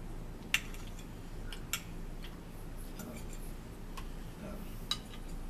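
Forks clicking and scraping against plates as two people eat, about five short sharp clinks spread across the few seconds, the first the loudest, over a low steady hum.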